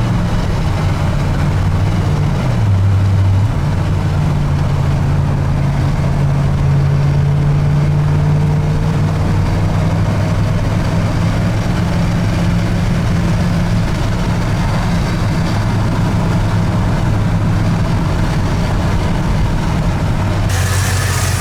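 1985 Ford F-150's carbureted engine running steadily while the truck is driven. Its note drops in pitch about two to three seconds in, then holds. More high hiss comes in near the end.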